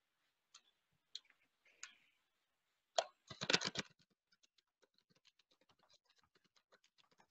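Computer keyboard being typed on, faintly. A few scattered keystrokes come first, then a louder quick run of keystrokes about three seconds in, then a steady stream of faint rapid keystrokes.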